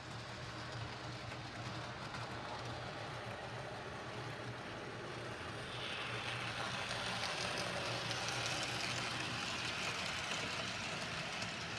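Model steam locomotive and its passenger cars rolling along the layout track, a steady running noise with a low hum. From about six seconds in the rolling grows louder and brighter as the cars pass close by.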